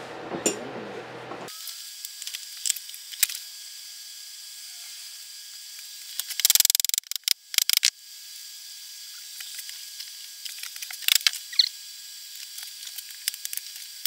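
Hand tools clicking, snapping and scraping against a small ultrasonic fogger's plastic housing held in a vise as it is picked apart. There is a dense run of loud snaps about six and a half seconds in, and scattered clicks over a steady hiss.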